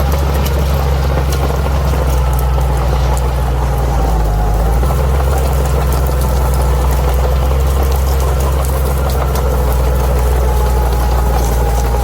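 Bulldozer's diesel engine running steadily at a low, even drone, with light clicking over it. The engine note shifts briefly about four seconds in.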